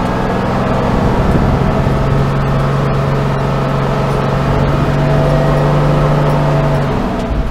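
Old fire engine's engine running as it drives, heard from inside its cab with a steady road rumble. The engine note drops about a second in, then holds steady until near the end.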